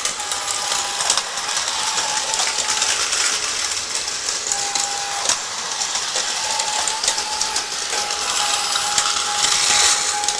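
Battery-powered Tomy plastic toy trains running on plastic track: a steady rattling whir of small motors and wheels, with a faint whine that comes and goes and many scattered clicks of plastic toy pieces being handled.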